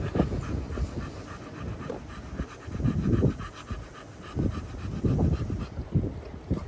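A dog panting steadily, with quick, even breaths.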